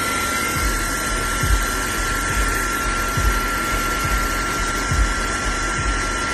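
Fanttik Slim V8 APEX cordless car vacuum's motor running steadily: rushing air with a steady high whine, and irregular low thumps.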